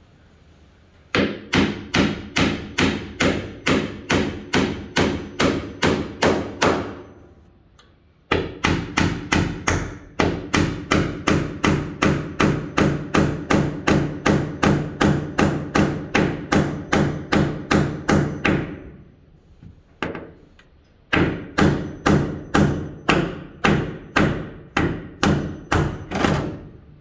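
Hammer driving a nail into wood in steady runs of about two to three blows a second, each blow with a short ring. Three runs are separated by brief pauses, with a single blow in the second pause.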